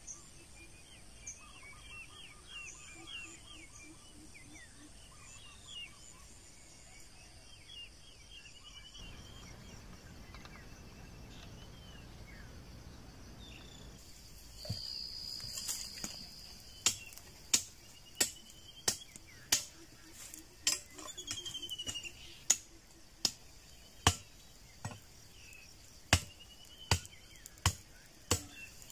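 Birds and insects chirping in the first half; then, from a little past the middle, a blade chopping bamboo in sharp, regular strikes about one and a half a second, with short pauses between runs.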